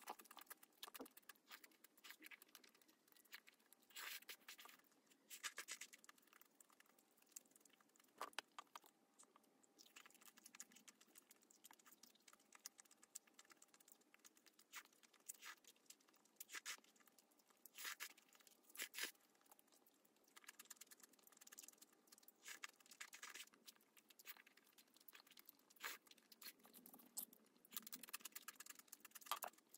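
Close-miked eating sounds: jjajangmyeon (black-bean noodles) picked up with wooden chopsticks and chewed, with short, sharp wet mouth clicks coming in small clusters every second or two.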